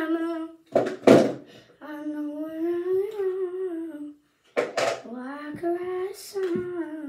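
A girl humming a wordless tune in long, held notes, in phrases of about two seconds, with short bursts of noise between the phrases.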